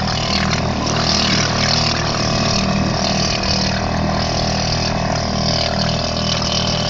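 Yamaha outboard motor running steadily as the small boat is under way, over a constant rush of noise.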